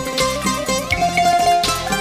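Instrumental break in a Greek laïko song: a plucked-string lead plays the melody over the band, with no singing. One note is held about halfway through.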